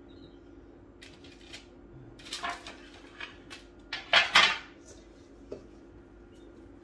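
Hands working bread dough in a stainless steel mixing bowl, scraping and rustling against the metal in two bursts, about two seconds and four seconds in, the second louder.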